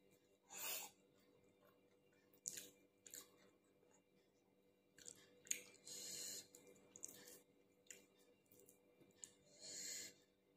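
Faint close-up mouth sounds of a person chewing food, with soft wet clicks and smacks. Three short hissing breaths come about a second in, about halfway, and near the end.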